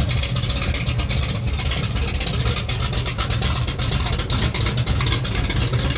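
Supercharged 454 big-block Chevy V8 in a Monte Carlo drag car idling roughly, its uneven, lumpy beat from an aggressive cam coming through loud exhaust.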